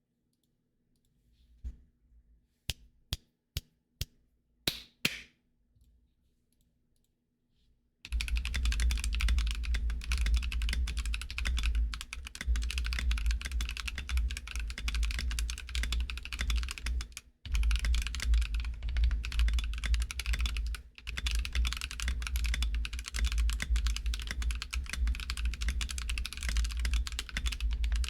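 GK64x mechanical keyboard with lubed Akko CS Lavender switches, lubed stabilizers and an aluminum plate being typed on: a handful of single keystrokes in the first few seconds, then fast continuous typing with two brief pauses.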